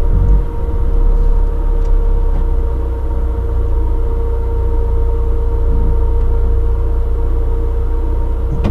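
A vehicle's engine running steadily at low revs, heard from inside the cab: a constant low rumble with a steady whine above it.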